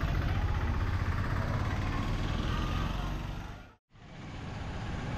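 Street traffic noise: vehicle engines and road rumble. It drops out suddenly just under four seconds in and fades back up over about a second.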